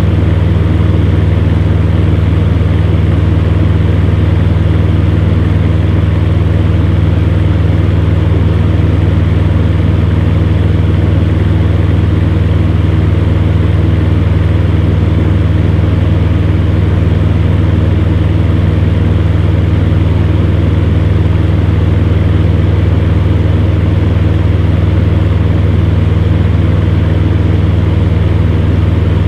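Electric fan heater running steadily: a constant low hum under an even rush of air from its fan.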